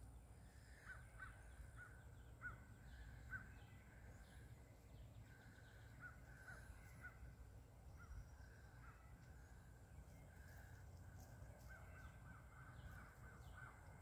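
Faint bird calls: three runs of short, quickly repeated notes, over a low steady background rumble.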